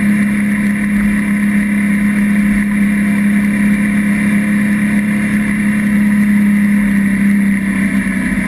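A loud, steady motor drone holding one low pitch without change.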